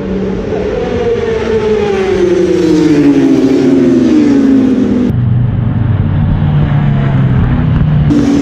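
Racing superbike engine at high revs, its pitch falling steadily for about five seconds, then a sudden change to a lower, steady engine note.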